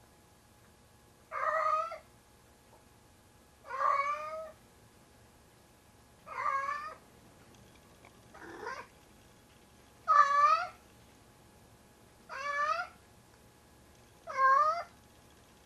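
A heavy tabby cat, about 25 pounds, gives loud, drawn-out meows, seven in a row, spaced about two seconds apart. The fourth is fainter and lower and rises in pitch. He is calling over the pair of socks he carries about as his 'kitten'.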